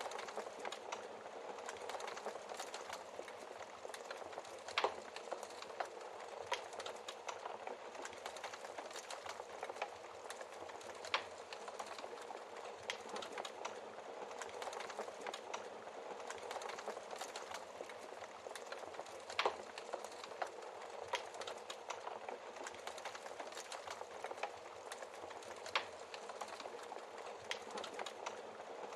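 Wood fire crackling steadily in a fireplace, with a few louder sharp pops from the burning logs.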